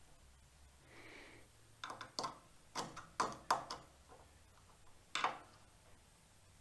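Light clicks and knocks of metal parts being handled while a table saw blade is being squared. A soft brushing sound comes about a second in, then about half a dozen separate knocks over the next few seconds.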